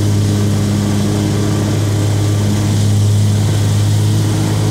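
Zero-turn riding mower's engine running at a steady speed, a constant low drone under the mowing.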